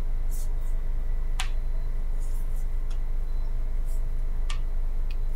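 Steady low hum with a faint high whistle and a few sharp clicks: the open-channel noise of a police radio scanner feed between transmissions.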